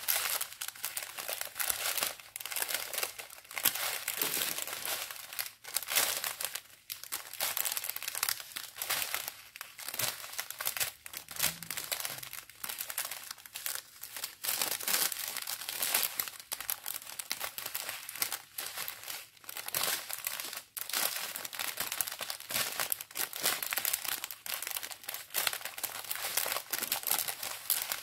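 A strip of small plastic bags of round diamond-painting drills crinkling as it is handled and unrolled: a dense, continuous crackle.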